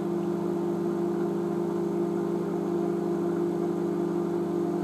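Microwave oven running mid-cycle, heating a bowl of rice and water: a steady, even hum.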